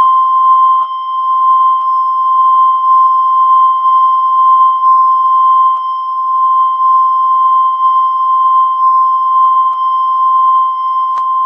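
A loud, steady electronic beep tone at one fixed pitch, held without a break for about eleven seconds and cutting off suddenly at the end, with a few faint clicks underneath.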